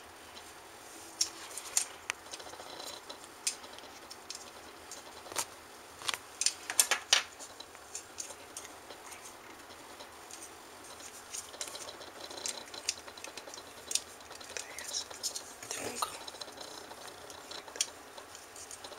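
Scattered light clicks and taps of small plastic parts: the face buttons of an opened Xbox 360 controller being handled and fitted into different spots in its shell.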